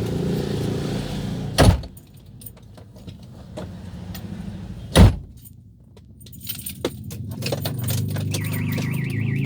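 A car's low running hum, broken by a loud thump about a second and a half in and another about five seconds in, with light key-jingling clicks between them. Near the end the car alarm starts up, a quickly wavering high tone.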